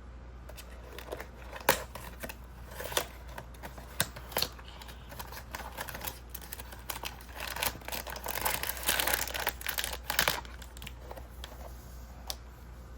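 Blind box packaging being opened by hand. First come scattered sharp clicks and taps of cardboard. From about seven to ten seconds in there is a stretch of crinkling and tearing, then more clicks near the end.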